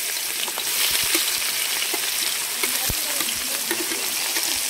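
Chopped onions frying in hot oil: a steady sizzle with scattered small pops.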